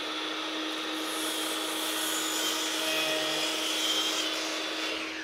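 Electric power tool motor running steadily for about five seconds, with a constant hum under a wide hiss, starting and stopping abruptly.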